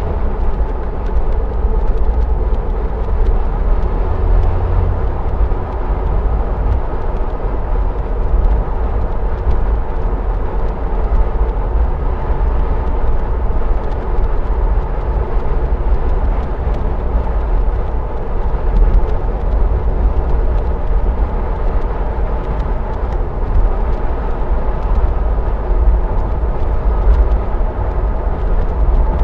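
Jeep Wrangler Unlimited Overland 4x4 driving at a steady cruise, with its engine running under a heavy, even rumble of tyre and road noise.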